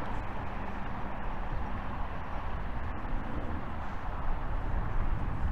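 Steady outdoor background noise: a low rumble with a hiss over it and no distinct events.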